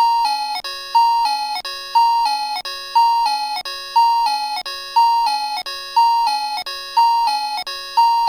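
Synthesized bell-like two-note chime, a higher note then a lower one, repeating about once a second like a ding-dong loop.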